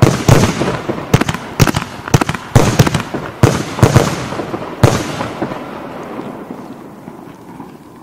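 Compound firework battery (Verbundfeuerwerk) firing a rapid, uneven series of about nine loud bangs over five seconds, the sound then dying away over the last few seconds.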